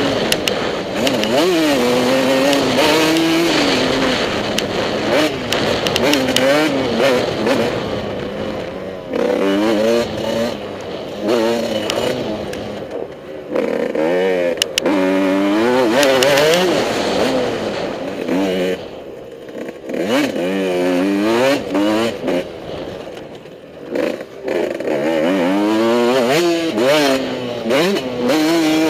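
Motocross bike engine revving hard and falling back over and over as the throttle is opened and shut, rising in pitch through the gears, with a couple of short drops where the throttle is closed.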